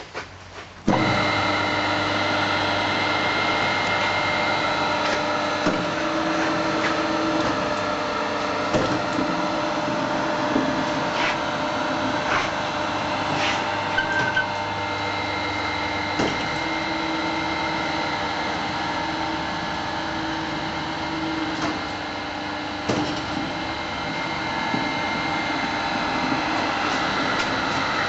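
Winter Auto line MF25X knife grinder starting up about a second in, then running steadily with a mix of motor hum and whine, with occasional clicks and knocks.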